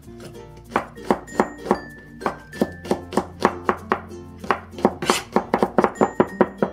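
Cleaver mincing garlic cloves on a cutting board: a steady run of sharp chops, about three a second, quickening to about four or five a second over the last couple of seconds.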